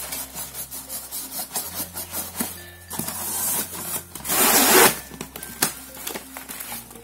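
Cardboard firework boxes and packaging being handled, rustling and scraping against each other, with a louder rubbing scrape about four and a half seconds in. Background music with steady low notes plays underneath.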